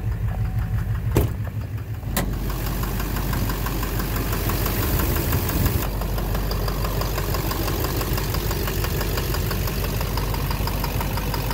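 A 6.6 L Duramax LMM V8 turbo-diesel runs steadily with a rhythmic knock, which the owner thinks is in the bottom end. Two sharp clicks come about one and two seconds in, after which the engine's low rumble is heavier.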